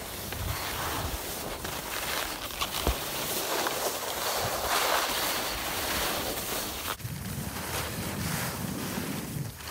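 Skis sliding and scraping over crusty, icy snow, a steady rushing hiss that swells around the middle, mixed with wind buffeting the phone's microphone.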